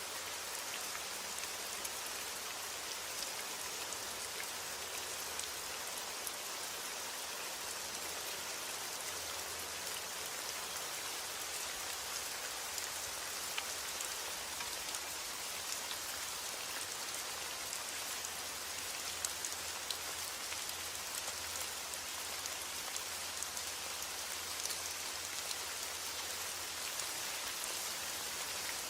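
Steady heavy rain falling on a roof, an even hiss with scattered sharper drop ticks.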